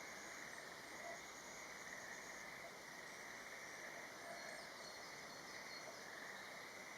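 Faint, steady chorus of calling frogs and insects, with one band of calls swelling and fading every second or two.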